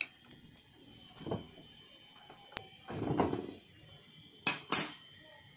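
Hand-work noises on a Yamaha Mio scooter engine: a few light knocks and a sharp click, a short scraping rustle about three seconds in, then two sharp metallic clinks near the end.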